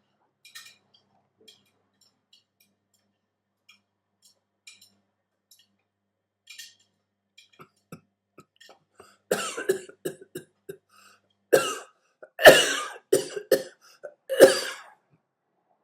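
Someone coughing: a run of about six harsh coughs starting about nine seconds in, after a stretch of only faint clicks.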